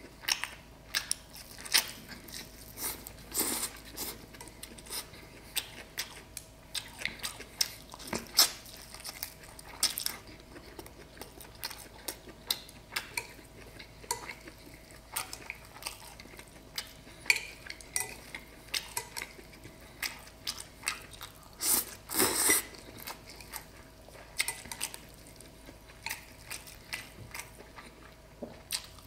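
Close-up eating sounds: wooden chopsticks clicking and scraping against a ceramic bowl again and again, with chewing. One longer, louder sound comes about three quarters of the way through.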